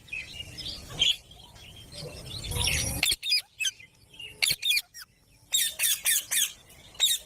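Indian ringneck parakeet squawking: a string of short, sharp, shrill calls, coming in a quick run of five or six about halfway through. A brief rustling noise comes just before the calls start.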